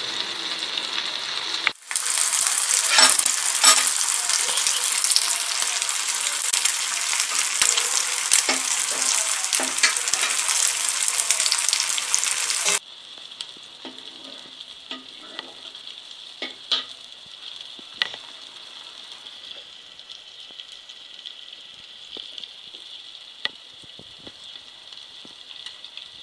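Seer fish (vanjaram) steaks shallow-frying in oil on a dosa griddle: steady sizzling full of fine crackles. About halfway through it drops suddenly to a quieter sizzle with scattered sharp pops.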